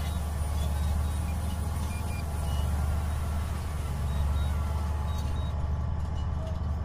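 Wind rumbling steadily on the microphone under the whir of a DJI Avata 2 drone's propellers as it hovers in to land. The higher hiss cuts off about five and a half seconds in.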